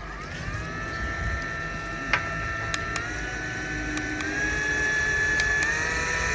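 Small motor of a handheld rechargeable fan spinning up, its whine rising and then stepping higher in pitch several times as the wind speed is raised, with a few sharp clicks.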